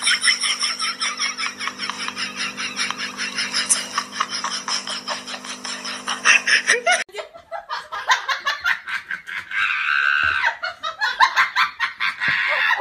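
Hearty laughter in rapid ha-ha pulses, about five a second. It breaks off abruptly about seven seconds in and starts again right away.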